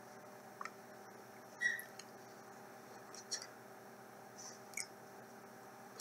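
Faint room tone with a steady hum, broken by a handful of soft, short clicks and rustles from a person's hands and mouth moving while signing.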